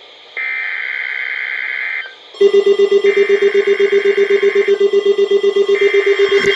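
Emergency Alert System header tones on NOAA Weather Radio: three screechy digital data bursts, each about a second and a half long, announcing a child abduction emergency (Amber Alert). About two seconds in, a loud, rapid, low-pitched pulsing alarm beep starts and keeps going under the bursts.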